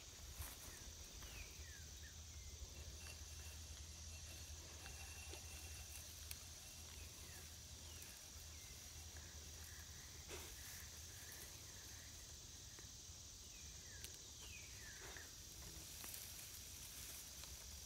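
Quiet outdoor ambience: a faint steady high-pitched insect drone, with a few short falling chirps scattered through it and an occasional soft tick or rustle in the grass.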